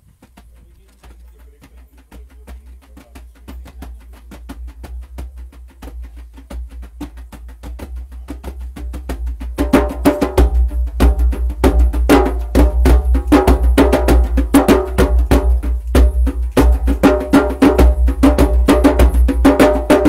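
Two djembes played by hand together in a quick, even rhythm. The drumming starts soft and swells steadily, and is loud from about halfway through.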